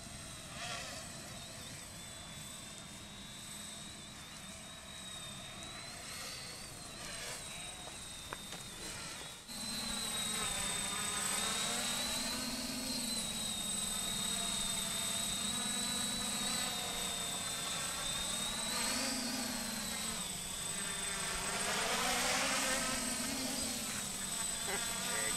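Quadcopter drone's propellers buzzing, the pitch rising and falling as the drone changes speed. The buzz gets louder from about nine seconds in.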